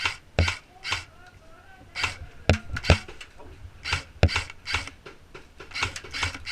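Footsteps crunching on rough ground, about two steps a second, coming in short runs with brief pauses between them.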